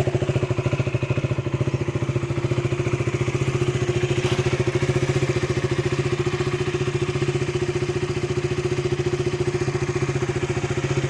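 KTM RC 200's single-cylinder engine idling steadily through its stock exhaust, with an even, rapid beat.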